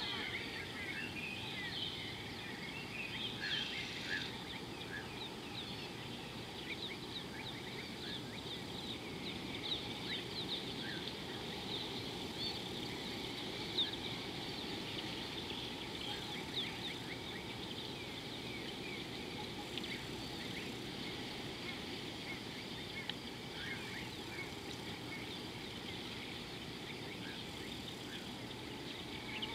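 Many birds chirping and calling at once, a dense chorus of short, quick notes, over a steady low background noise.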